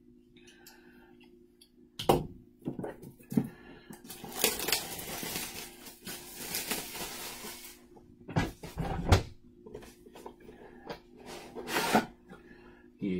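Things being handled on a table: a few sharp knocks and taps, with a stretch of rustling from about four to eight seconds in, over a faint steady hum.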